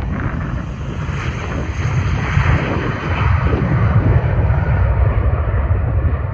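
Airbus A320-family jet airliner taking off, its engines roaring at takeoff thrust and growing louder about two seconds in, with wind buffeting the microphone.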